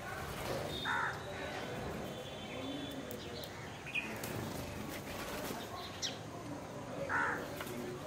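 Birds calling at a grain-feeding spot where common mynas, spotted doves and a house sparrow gather: a short harsh call about a second in and another near the end, a few sharp high chirps, and a brief flutter of wings about halfway through as birds fly in.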